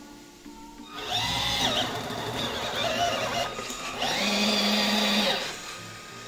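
Small 180-size brushed motor and plastic gearbox of a 1:16 RC truck whining under throttle in two runs, the pitch rising and falling as the motor speeds up and slows down.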